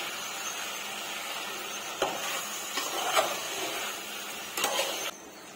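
Chicken sizzling as it fries in a metal pot while a metal spoon stirs in a ground masala paste, with several scraping strokes of the spoon against the pot. The sizzle cuts off abruptly about five seconds in.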